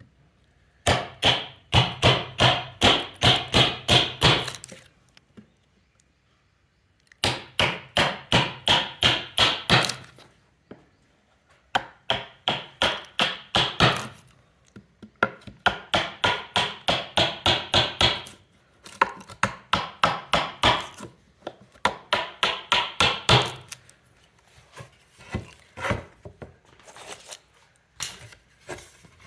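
Hammer striking a chisel to chop out the waste wood of a halving joint: runs of quick, crisp blows, about three a second, broken by short pauses, turning to lighter taps near the end.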